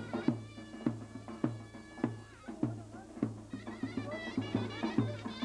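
Davul bass drum and zurna playing Turkish folk dance music: heavy drum strokes under a shrill, ornamented reed melody that grows stronger after a few seconds.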